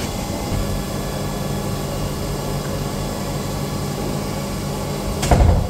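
A machine running with a steady hum and whir, holding several level tones; a brief louder noise comes near the end.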